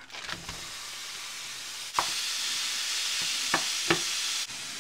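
Ground beef sizzling as it browns in a hot pan, the hiss stepping up louder about two seconds in, with a few sharp knocks of a utensil stirring the meat.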